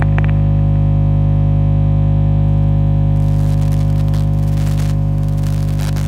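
Steady, deep high-voltage electrical hum made of many evenly spaced tones, like a humming transformer. A couple of sharp crackles come right at the start, and a faint crackle joins in over the second half.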